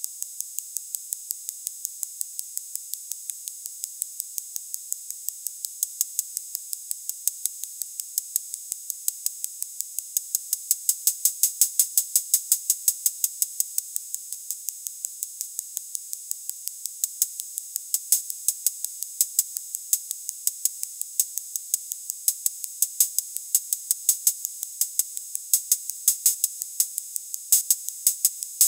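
Breadboarded analog Roland/BOSS-style electronic cymbal circuit triggered in a fast, steady run of short, bright, hissy cymbal hits, about four a second. Some hits come louder around the middle, and in the second half the accents fall unevenly.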